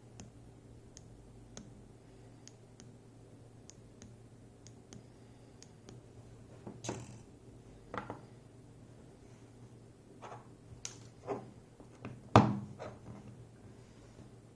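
Faint ticks of small metal lock parts, then a series of knocks and thunks as the gutted ASSA 600 pin-tumbler lock and its pieces are handled on a work surface, the loudest about twelve seconds in.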